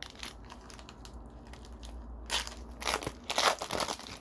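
A trading-card pack's foil wrapper being torn open and crinkled by hand: light rustling, then three louder crinkly bursts in the second half.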